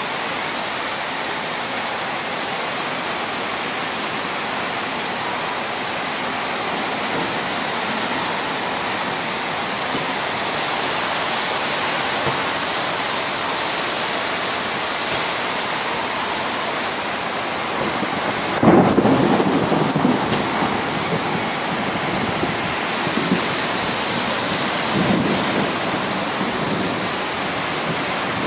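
Heavy rain and wind of a violent storm: a steady, dense rush of downpour, with a louder low rumble about two-thirds of the way through.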